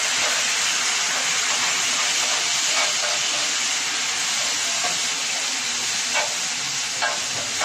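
Tomato and spice masala with added water hissing and sizzling steadily on a hot tawa griddle as the water boils off in steam, with a few short clicks near the end.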